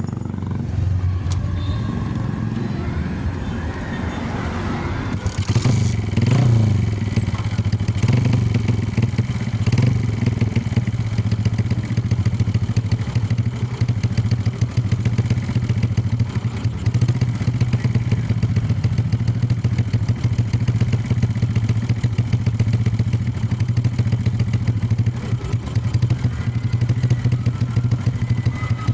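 Suzuki Shogun SP 125's single-cylinder four-stroke engine running through an aftermarket Amphibi silencer exhaust. It rises a few times in the first ten seconds, then settles into a steady idle.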